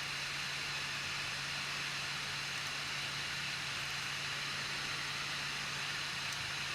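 Anycubic i3 Mega 3D printer running: a steady whirring hiss over a low hum, with no extruder clicks standing out.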